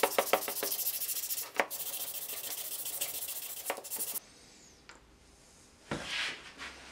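Sandpaper rubbed by hand in rapid back-and-forth strokes over the edge of a wooden knife handle, stopping suddenly about four seconds in. A brief rustle follows near the end.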